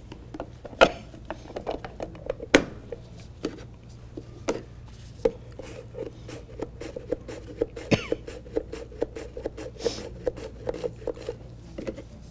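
Yellow onion being sliced on a hand mandoline. A few sharp knocks come first, then from about five seconds in a quick run of rhythmic slicing strokes, about three a second.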